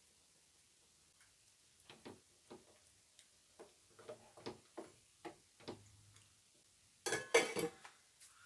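Faint kitchen handling noises: scattered light clicks and knocks of utensils and containers, then a brief louder clatter near the end.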